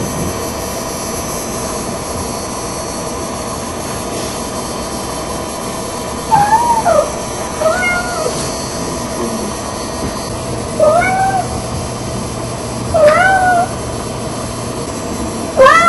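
Red tabby Persian cat meowing at a closed bedroom door: about five short, rising-and-falling meows a couple of seconds apart, the first about six seconds in, over a steady hiss. Her meowing is an impatient morning demand for her owners to get out of bed.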